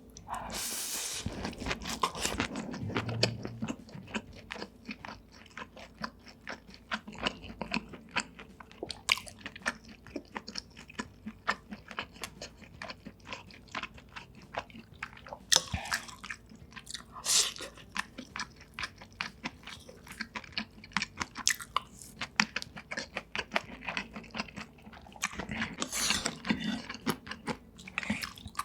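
Close-miked eating sounds of a person chewing and biting food, with many quick wet mouth clicks and some crunching. Several louder bites come along the way.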